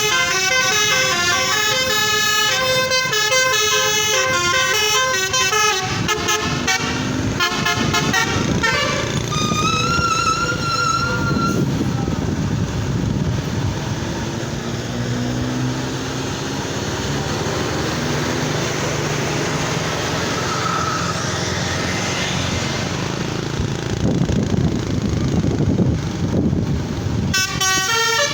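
Telolet multi-tone air horn playing a fast melody of changing notes, cut off about six seconds in. A steady vehicle engine and road rumble follows, with one short held horn note at about ten seconds, and the telolet melody starts again near the end.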